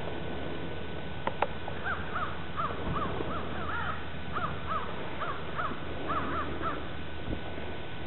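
Crows cawing in a quick series of short calls, about three a second, for several seconds. Two sharp clicks come just before the calls start.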